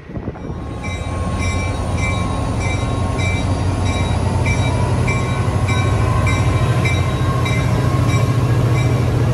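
Caltrain F40PH diesel locomotive passing close by under power: a steady low engine drone that grows louder over the first second, with the locomotive bell ringing about twice a second.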